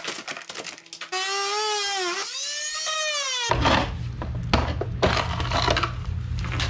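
A cut section of a U-shaped drainage track being pried up and pulled out of a broken-out concrete floor: knocks and scraping, with a drawn-out squeal of wavering pitch for about two seconds as it rubs free. From about halfway a low steady hum runs under further scraping and knocks.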